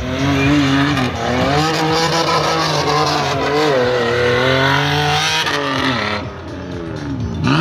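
Suzuki Samurai with a swapped-in BMW engine revving hard under acceleration, its pitch repeatedly climbing and falling through the revs. It eases off about six seconds in, then revs sharply up again near the end.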